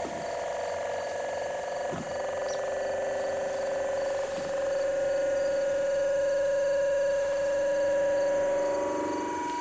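Battery-powered synthesizer playing a sustained electronic drone: a held, buzzy note with overtones that swells slightly and shifts to a lower note near the end. There are a few faint clicks in between.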